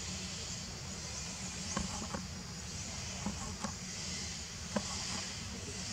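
Steady outdoor background: an even high hiss over a low rumble, with a handful of soft, faint clicks or rustles about two, three and a half, and five seconds in.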